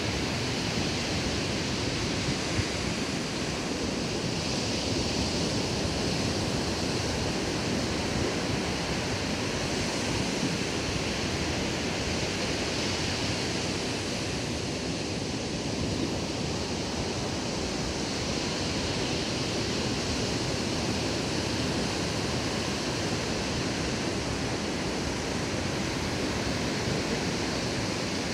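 Ocean surf breaking on a sandy beach: a steady rush of waves that swells and eases slowly.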